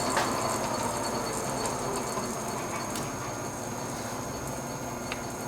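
Hardinge HLV-H-EM precision lathe running with its lead screw turning for threading: a steady whir of gearing and drive with a few faint clicks. It gets slightly quieter as the spindle speed is turned down.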